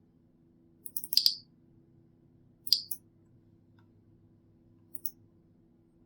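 Computer clicks while paging through a help file: three short clusters of sharp clicks, about one, three and five seconds in, the last one faint, over a faint steady low hum.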